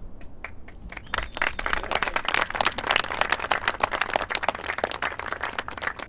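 Small seated audience applauding: a few scattered claps that build within the first second or so into steady, dense clapping.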